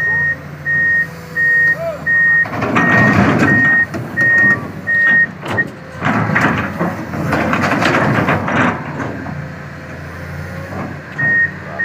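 Komatsu excavator's travel alarm beeping about once a second as the machine moves on a lowboy trailer; it stops about halfway through and starts again near the end. In the middle, a louder stretch of engine noise is heard over and between the beeps.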